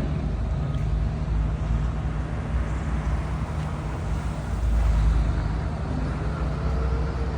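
Melbourne Metro suburban electric train running: a steady low rumble with a constant low hum, swelling slightly about five seconds in.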